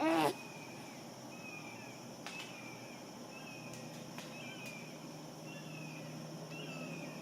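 A baby's brief squealing vocalization right at the start, the loudest sound. After it come short, high, falling chirps about once a second over a steady high insect drone, with a few faint clicks.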